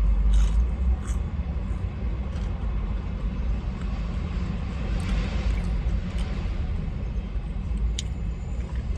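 Steady low rumble, with a few faint clicks from chewing fries.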